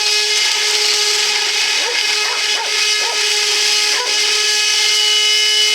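Vacuum cleaner motor running steadily with a constant high whine and a rushing air hiss; the owner thinks some of its impeller blades are broken and the fan is out of balance.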